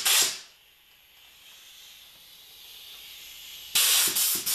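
Compressed air hissing from an air-compressor blowgun as it blasts dust out of a laptop's heatsink and vents. One blast ends just after the start, then after a pause of about three seconds comes a run of short blasts near the end.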